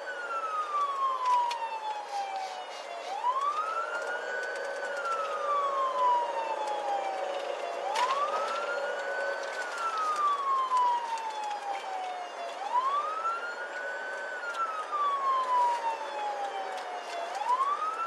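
Police car siren on a slow wail, heard inside the moving squad car: each cycle rises quickly, then falls slowly, about once every five seconds, over a steady hum. A few sharp clicks come through, one loud one about eight seconds in.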